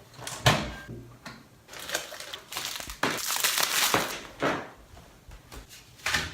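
Crinkling and rustling of packaging being handled in irregular bursts, with a sharp knock about half a second in.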